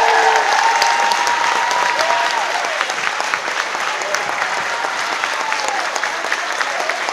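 Large audience applauding, with cheering voices over the clapping for the first couple of seconds; the applause eases slightly toward the end.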